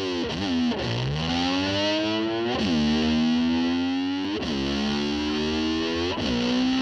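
Distorted electric slide guitar imitating a motor scooter revving. A held note swoops down and slides back up four times, about every two seconds.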